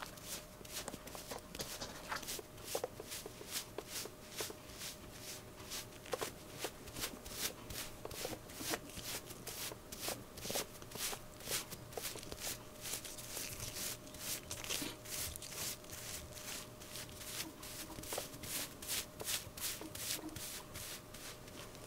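A bristle brush stroking through a gray tabby cat's fur in quick, even swishes, about two to three strokes a second, over a faint steady hum.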